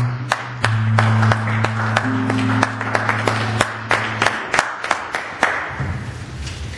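An acoustic guitar holds a few long low notes while a small audience claps at about three claps a second. The clapping thins out and stops about five seconds in.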